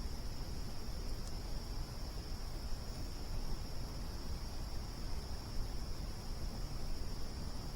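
Crickets trilling steadily on one high pitch over a low, even rumbling background noise, with one faint tick about a second in.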